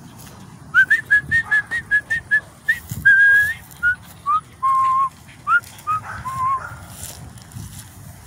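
A person whistling to call a dog. It opens with a quick run of short whistled notes, about five a second, then moves to a few longer held notes that drop lower in pitch.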